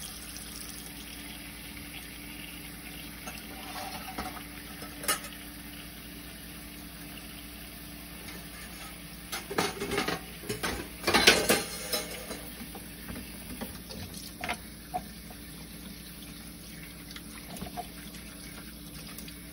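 Kitchen tap running in a steady stream into a stainless steel pot of boiled eggs in a sink, with a single knock about five seconds in and a burst of knocks and clatter around ten to twelve seconds in.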